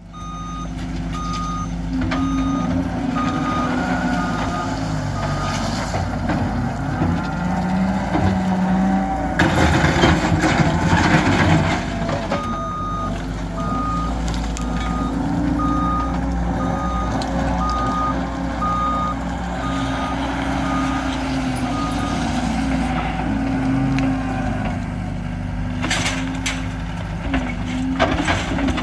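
Diesel heavy equipment running and revving, its reversing alarm beeping steadily in two spells. Loud crashing and clattering of debris breaks in about ten seconds in and again near the end.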